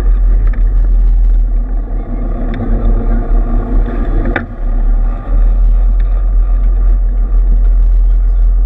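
An engine running steadily with a heavy low rumble, and a single sharp knock about four seconds in.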